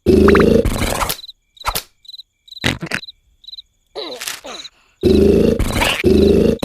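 Cartoon sound effects: a cricket chirping in short, evenly repeated high chirps. Loud, low cartoon snoring is heard over it at the start and again from about five seconds in.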